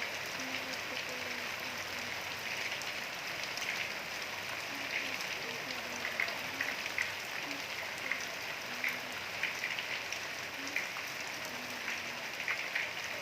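Steady rain falling, with many individual drops striking sharply among the even hiss.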